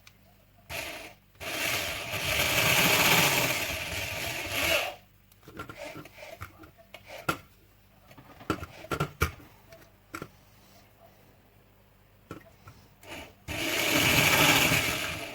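A tool cutting into the vacuum's plastic housing: two long bursts of rough rasping noise, with clicks and knocks of parts being handled between them.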